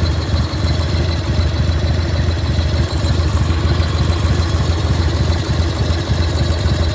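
1995 Harley-Davidson FXSTSB's air-cooled Evolution 1340 V-twin idling steadily. A steady high whine sits over the idle, and the owner finds the engine's noise strange.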